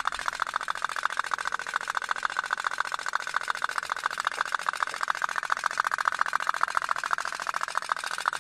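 Toy pop-pop (otok-otok) steam boat running, its little boiler engine putting out a rapid, even putt-putt.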